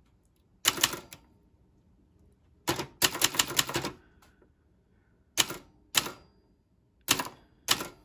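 Brother Charger 11 manual portable typewriter being typed on: a few key strikes, a quick run of strikes around three seconds in, then four single strikes spaced out toward the end. A tinny, metallic clatter.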